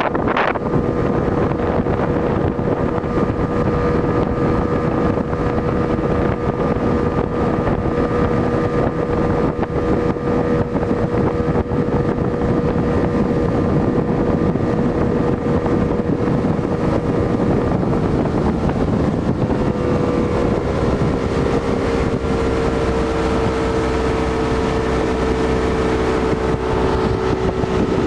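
Motorboat engine running steadily under way, its note dropping slightly about two-thirds of the way through as the boat eases off. Wind buffets the microphone throughout.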